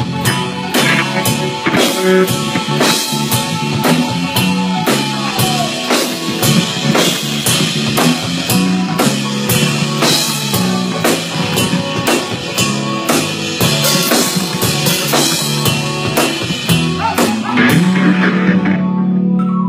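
Live funk band playing at a soundcheck: drum kit keeping a steady beat under bass and guitar. About eighteen seconds in, the drums stop and the band holds a low sustained note that fades out.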